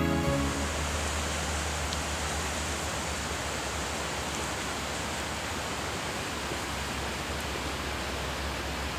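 Steady outdoor rushing noise with a low hum beneath it. A gentle music track fades out in the first moment.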